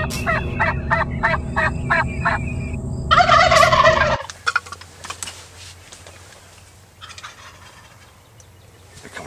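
A turkey gobbler gives one loud, rapid rattling gobble about three seconds in, after a run of evenly spaced clicks, about three a second, over a steady low hum. After that there is only faint open-air quiet.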